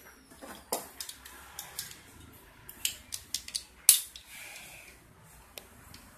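Scattered light metallic clicks and taps, a dozen or so, the sharpest about four seconds in: small metal parts and tools being handled while a mountain bike rear shock absorber is put back together.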